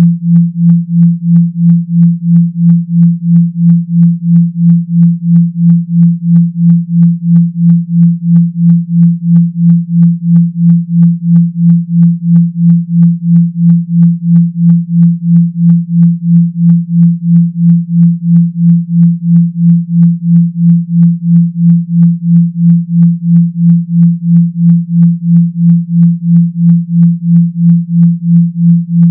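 Synthetic deep 170 Hz hum, pulsing evenly at about two to three beats a second: a vibration tone made for shaking water out of a phone speaker.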